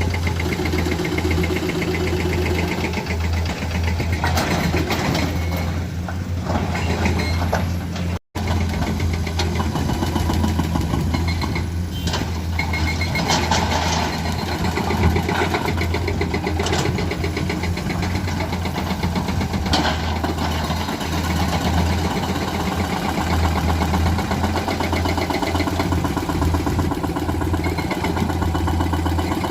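Heavy diesel engines of construction machinery running steadily, a low drone with scattered knocks and clanks. The sound breaks off for an instant about eight seconds in.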